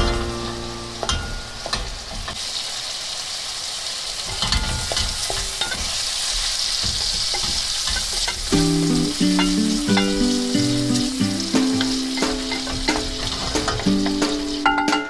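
Diced chicken sizzling in hot fat in an aluminium skillet, stirred and scraped with a wooden spatula, with small clicks of the spatula against the pan. Background music comes in about halfway through.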